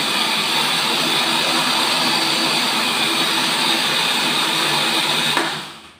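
Electric countertop blender running steadily, grinding raw rice with ice and water into a drink. It is switched off about five and a half seconds in, and the sound dies away as the motor winds down.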